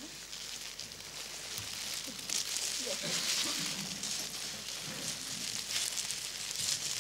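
Audience applauding, swelling about two seconds in and carrying on, with faint voices underneath.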